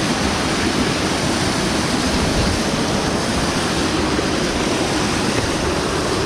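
Kanarra Creek's water rushing steadily, an even, continuous noise with no breaks.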